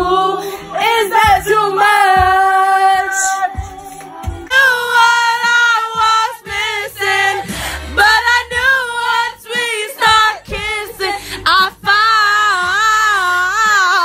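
Young female voices singing at full volume, belting long held notes, with the pitch wavering on the held notes near the end.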